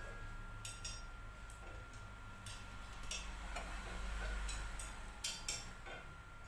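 Scattered light metallic clicks and ticks of a steel-tube stool frame and its bolt hardware being handled and fitted together by hand, with two sharper clicks near the end.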